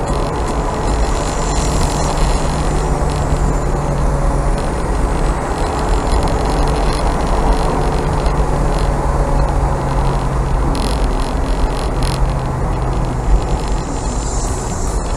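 Mazda MX-5 driving at a steady pace, its engine running evenly under a constant rumble of road and wind noise.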